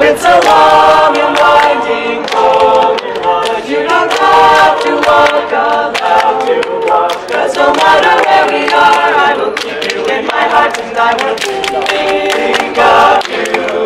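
A youth choir singing a cappella in harmony, several voices together, with hand claps keeping time through the song.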